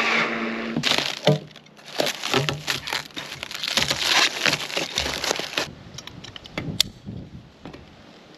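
Makita cordless drill running for about the first second, then stopping. Then a plastic bag crinkling and rustling for about five seconds as it is handled. A few light clicks follow, with one sharp click near the end.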